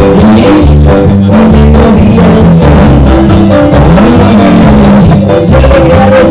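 A live band playing loud amplified music: bass line, drum kit and Latin percussion.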